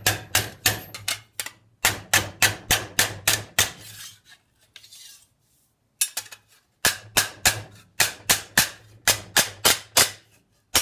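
Mallet blows on thin annealed stainless steel sheet laid over a steel forging stake, a quick even run of sharp metallic strikes at about three a second. The strikes are drawing blows that curve the sheet's edge. They stop for a couple of seconds while the sheet is shifted with a faint scrape, then start again.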